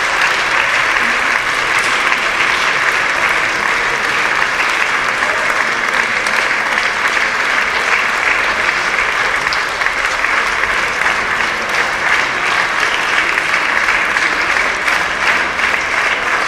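Audience applauding steadily: a dense, even clatter of many hands clapping at once.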